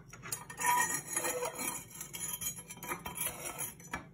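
A metal poker scrapes and rakes soot along the brick flue channel of a masonry stove through its cleanout door. The scraping is irregular, with small metallic clinks.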